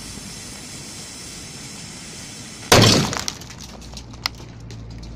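Airsoft pyrotechnic grenade going off inside a stuffed rubber glove: a steady hiss of the burning fuse, then a single sharp blast about two and a half seconds in. A few scattered clicks follow as the pea filler and scraps land.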